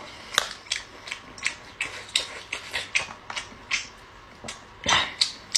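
Close-miked chewing of lobster meat: a steady run of wet mouth clicks and smacks, about two or three a second, with a louder, longer noisy burst near the end.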